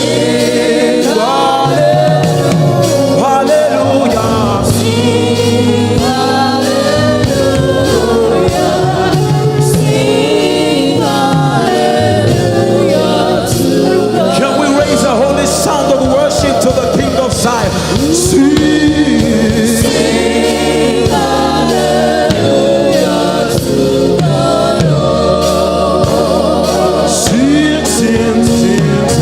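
Gospel worship song: several voices singing together over sustained instrumental backing, with percussive beats coming in around the middle.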